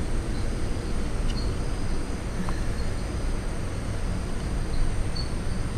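Steady low rumble of a ceiling fan running, with the high, steady trill and occasional chirps of night insects.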